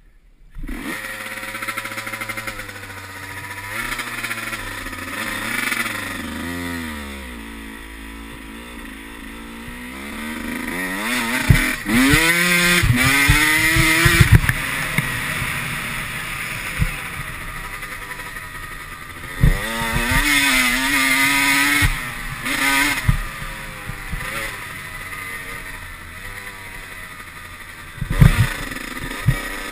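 Dirt bike engine revving up and down through the gears on a rough trail, its pitch climbing and dropping again and again. Several sharp knocks and clatter come from the bike hitting bumps.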